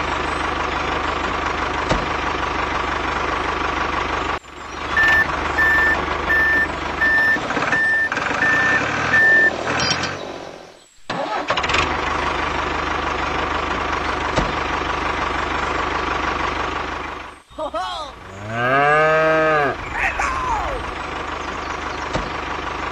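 A vehicle engine running steadily, cutting out briefly a few times. In the middle a reversing alarm beeps about eight times at an even pace, a little under two beeps a second. Near the end comes a short voice-like call that rises and then falls in pitch.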